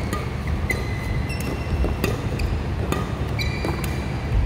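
Badminton racket strings hitting a shuttlecock in a quick defensive rally, a sharp pop about once a second, with rubber-soled court shoes squeaking briefly on the court mat several times. A steady low hum of the hall runs underneath.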